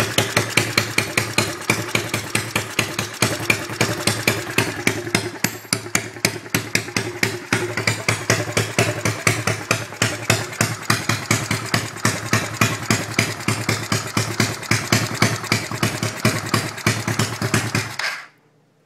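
110cc X-18 super pocket bike engine running with an even, rapid pulse, then cutting out abruptly near the end; the owner guesses it stalled from nearly running out of gas.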